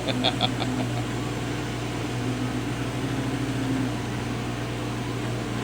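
80-watt CO2 laser cutter running while cutting cedar: a steady machine hum, with a somewhat higher tone that comes and goes.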